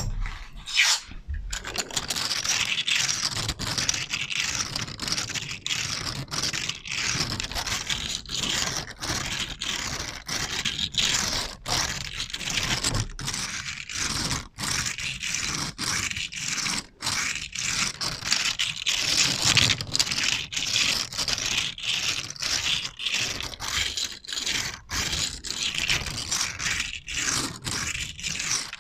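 Close-up scraping, a rapid series of short scratchy strokes about two to three a second, played as an ASMR trigger.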